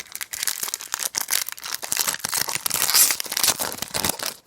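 A trading card pack's wrapper being torn open and crinkled by hand: a dense crackle of rapid tears and rustles, loudest about three seconds in, stopping just before the end.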